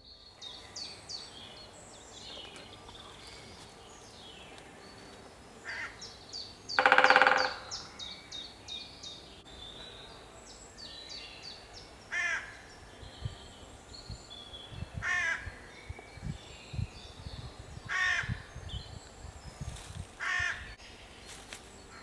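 Woodland birds: small songbirds singing high trills and chirps throughout, with one loud harsh call about seven seconds in. Four shorter harsh calls follow in the second half, along with a few soft low thumps.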